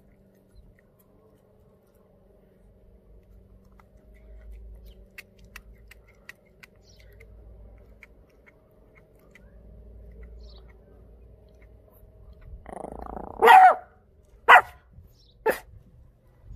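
Pomeranian chewing a raw duck foot with faint crunching clicks. Near the end a dog barks three times about a second apart; the first bark is longer and rougher and the other two are short and sharp.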